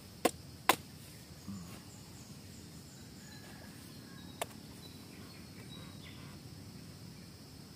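Machete chopping into the husk of a young green coconut: two sharp strikes within the first second and one more about four and a half seconds in. A steady high hum of insects runs underneath.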